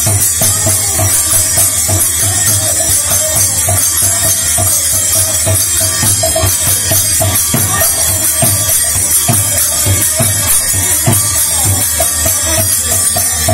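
Bengali kirtan music: a khol drum beats a steady, lively rhythm with its deep bass strokes, under a harmonium and a bright metallic jingle of cymbals.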